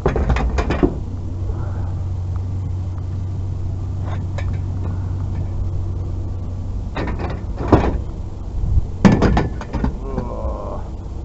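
A vehicle running with a steady low hum. Several sharp knocks and clanks are heard at the start, once or twice midway, and in a quick cluster about nine seconds in.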